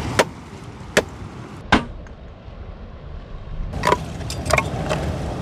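Sticks being chopped for firewood: three sharp strikes in the first two seconds, then a few lighter knocks near the end, over a steady rumble of wind and surf.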